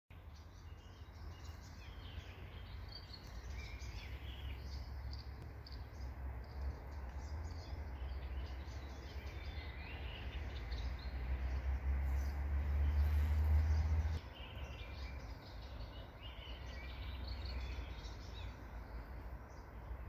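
Small birds chirping and calling in the background over a low rumble, which grows louder and then drops away abruptly about two-thirds of the way through.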